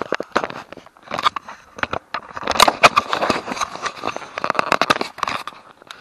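Irregular crackling and scraping from a camera tucked into a rider's top, rubbing against the clothing and fingers as he cycles.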